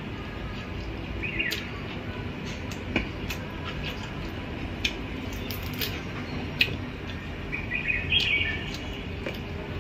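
Quiet eating by hand: soft clicks and smacks of fingers, food and plates, over a steady low background rumble. A small bird twitters twice, briefly, about a second in and again about eight seconds in.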